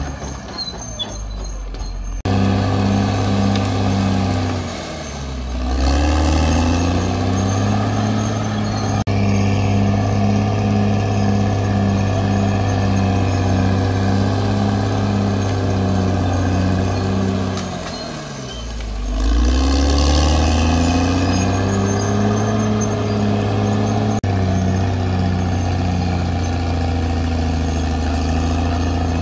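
CAT D6R XL bulldozer's diesel engine working under load, with a regular pulsing in its note. Twice, about five seconds in and again near the two-thirds mark, the engine note sinks and then climbs back up as the revs drop and recover.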